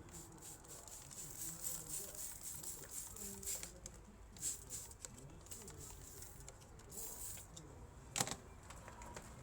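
Irregular handling noises, rustling and scratching with light clicks, and one sharper click about eight seconds in.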